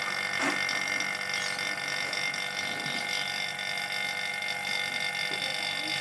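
Refrigeration vacuum pump running steadily, evacuating air from the refrigerator's sealed system before it is charged with freon.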